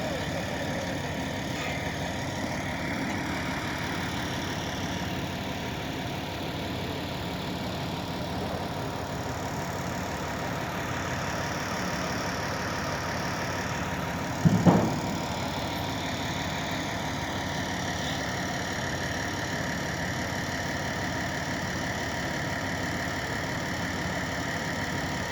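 An engine idling steadily, with one sharp knock about halfway through.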